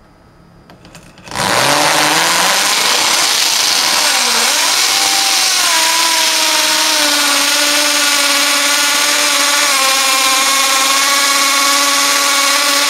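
Drill set to hammer (impact) mode boring down into the end grain of a wooden block, very loud, with a whine that climbs in pitch over the first few seconds and then holds steady. The hammer setting is not needed for wood and makes the drilling much louder.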